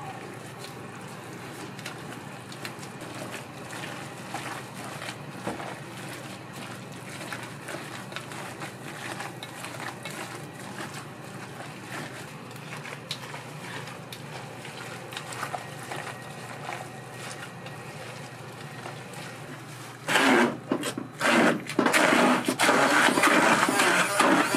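Food-preparation clatter: light clicks and knocks over a steady background hum. About twenty seconds in, a much louder rushing noise starts suddenly, breaks off twice, then runs steadily.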